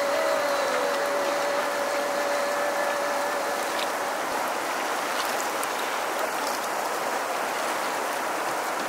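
Fast-flowing river water rushing steadily. A single held tone sounds over it for about the first three seconds.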